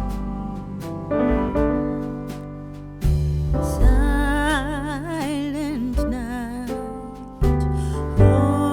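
Background music: keyboard or piano chords, with a voice singing a wavering, ornamented melody from about four seconds in.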